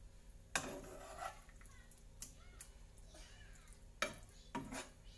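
A spoon scraping and knocking against a frying pan and a ceramic bowl as food is served out, with several sharp clicks at irregular intervals, the strongest about half a second in and about four seconds in.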